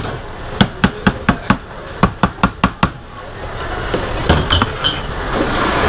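Kitchen knife chopping peeled bananas on a plastic cutting board: a quick run of sharp knocks, about four a second. The chopping stops about three seconds in and a softer scraping noise follows.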